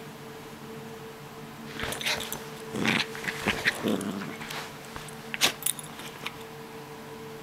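Maltese dog play-growling and scuffling as it tussles with a hand on a blanket, in short irregular bursts from about two seconds in, with a couple of sharp clicks.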